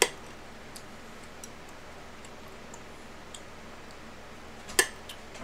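Eating sounds at a plate: a loud, sharp click at the start and another near the end, with faint scattered ticks between.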